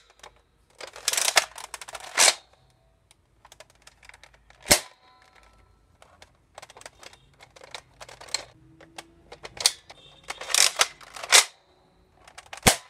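Nerf Rival Helios bolt-action blaster being handled: clattering plastic clacks twice, in clusters of a second or so, and four single sharp snaps a few seconds apart.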